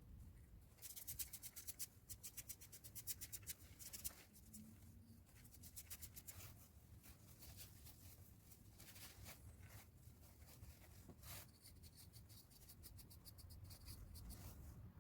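Quick, light scratching strokes of hand work on a small workpiece, many to the second, in runs with short pauses between.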